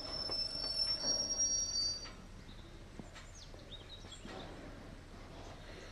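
Loaded TEA bogie tank wagons rolling slowly, their wheel flanges squealing in a high steady pitch that stops about two seconds in, with a few sharp knocks from the wheels on the track. After that there is a quieter rumble.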